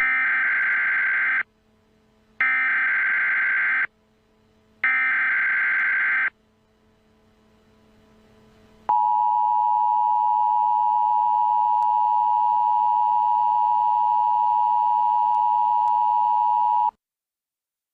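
Emergency Alert System signal: three harsh, buzzing SAME header data bursts of about a second and a half each, a second apart, then the EAS attention signal, a steady two-tone sound (853 and 960 Hz), held for about eight seconds before cutting off.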